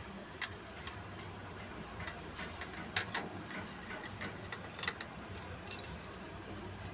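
Scattered light clicks and ticks at irregular intervals, a few of them sharper than the rest, over a faint steady low hum.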